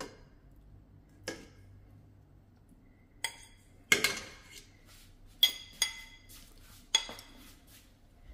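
A fork clinking against a cooking pot and plate while oxtails are served: about seven sharp clinks, several ringing briefly, the loudest in the middle.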